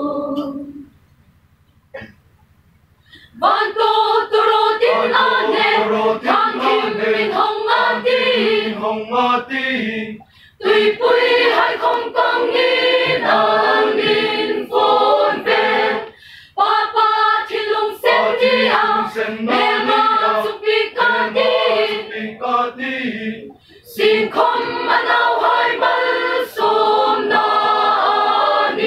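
Mixed choir of women's and men's voices singing. A pause of about two seconds comes near the start, then the singing resumes in phrases separated by brief breaks.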